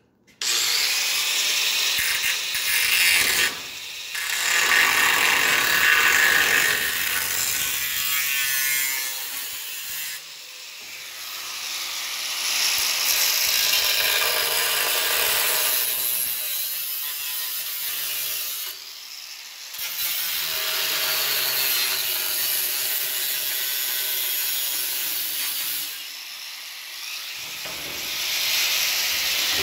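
A handheld power tool cutting through the steel window frame of a pickup truck door, running in several long passes broken by short pauses.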